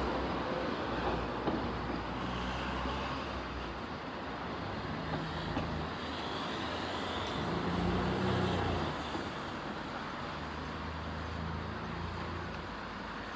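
A road vehicle's engine running steadily close by, a low hum over general road traffic noise, swelling briefly around the middle.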